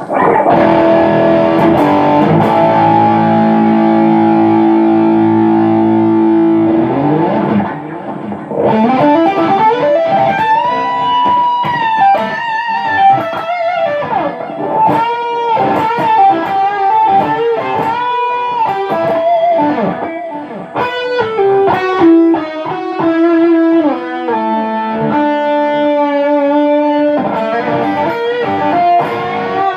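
Overdriven electric guitar: a Fender Custom Shop '63 relic with a Benson Custom Shop single-single-humbucker pickup set, played through a Mooreaudio Red Truck distortion pedal with delay into a Fender Hot Rod Deluxe III amp. A chord rings out for about seven seconds, then slides up the neck into a lead melody of bent notes and held notes with vibrato.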